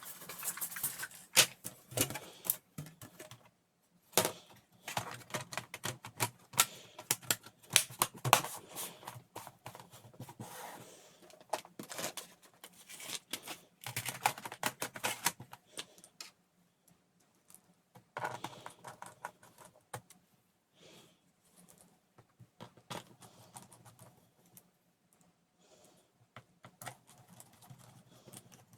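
Irregular clicking, tapping and rattling of plastic laptop casing parts and small screws being handled and fitted back together. The clicks are dense for the first half and sparser and quieter after that.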